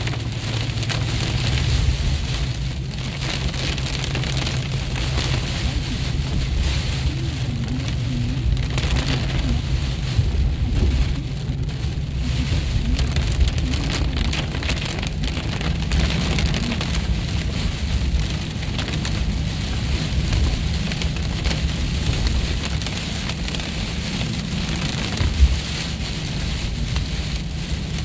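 Heavy rain falling on a car's windshield and body, heard from inside the moving car over a steady low rumble of the car on the road. A single sharp knock comes near the end.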